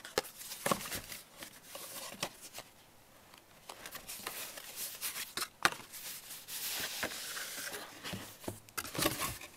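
Cardboard watch packaging being handled and opened: scattered light taps and knocks as box parts are moved, with a longer papery rustle and slide about seven seconds in.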